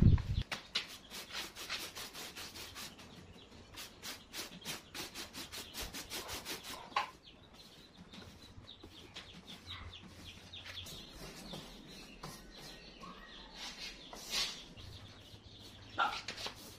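Paintbrush stroking and dabbing wet cement slurry, with short strokes several times a second for the first several seconds, then fewer and fainter strokes.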